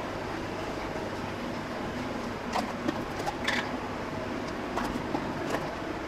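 A handful of light clicks and taps as a spoon and plastic spice jars knock against small glass bowls while spices are measured out, over a steady background hum.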